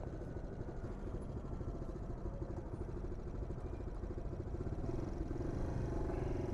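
Motorbike on the move, heard through a wired lavalier mic: a steady low rumble of wind buffeting and road noise with the engine's hum under it. The engine tone grows louder about five seconds in.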